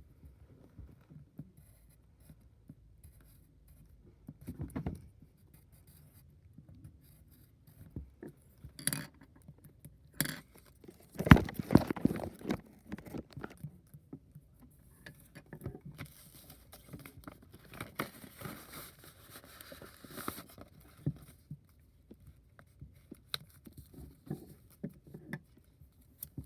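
Handling noises while a box is unpacked: scattered knocks, scrapes and rustling, loudest in a cluster of knocks about eleven seconds in, with a few seconds of continuous papery rustling later on.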